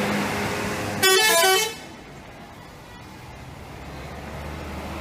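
A bus's telolet horn, a multi-tone musical horn, plays a quick run of changing notes for under a second, about a second in. It is the loudest sound and is preceded by a steady engine hum.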